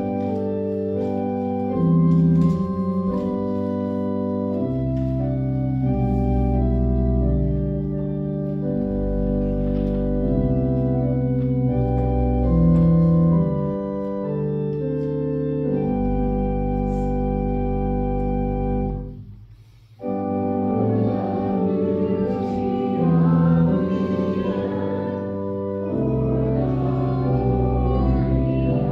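Church organ playing the introduction to a hymn in sustained chords. After a short break about two-thirds of the way through, the congregation starts singing the hymn with the organ.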